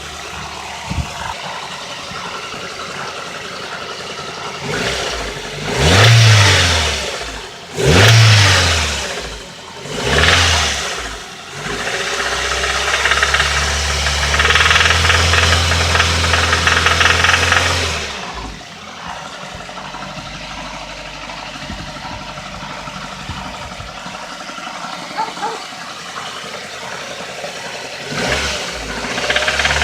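Nissan car engine idling with a knock, blipped three times in quick rises and falls, then held at higher revs for several seconds before dropping back to idle. The knock is from a spun bearing shell.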